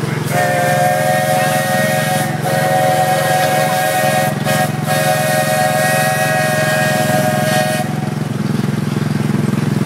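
A steam locomotive's chime whistle blows one long multi-note chord, broken by a few brief gaps, and cuts off about two seconds before the end. Under it, the ride car's small engine hums steadily.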